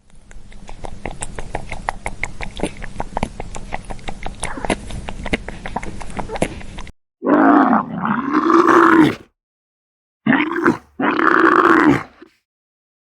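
An animal calling: three loud, drawn-out calls about seven seconds in, the first and longest lasting about two seconds. They follow several seconds of crackling and clicking noise.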